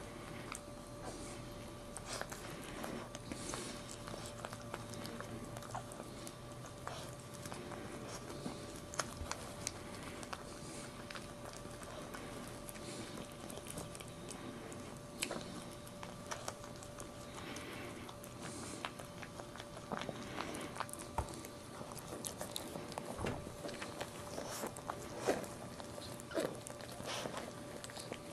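Maltese mother dog licking her newborn puppy clean: scattered wet licks and mouth smacks, irregular throughout, over a faint steady hum.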